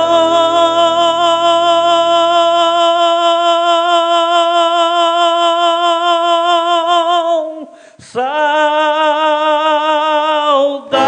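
A singer holds a long sustained note with vibrato for about seven seconds, breaks off briefly, then holds a second long note; the plucked accompaniment rings away under the first note.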